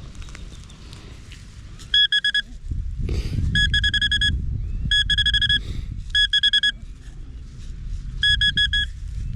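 A metal detecting pinpointer beeping in five quick bursts of rapid high pulses as it is worked over the dug hole, signalling metal close to its tip. Low rustling and scraping runs underneath from about three seconds in.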